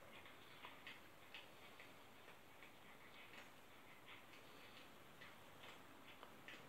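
Near silence: room tone with faint, irregular light ticks, two or three a second.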